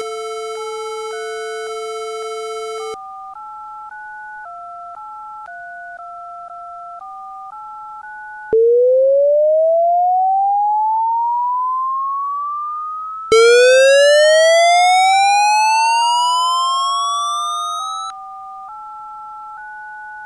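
Synthesized electronic connection tones. A buzzy steady tone lasts about three seconds over pairs of beeping tones that step up and down in pitch like a dialing sequence. Then two long rising whistling sweeps come, about eight and thirteen seconds in, the second one buzzier. These tones signal a connection being established.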